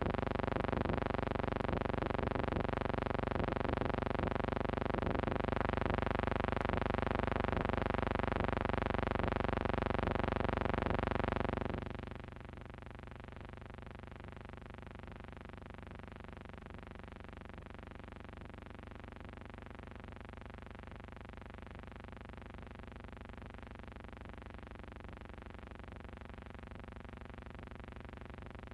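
A steady, unchanging drone with many overtones, like a sustained synthesizer chord; it drops suddenly to a lower level about twelve seconds in and holds there.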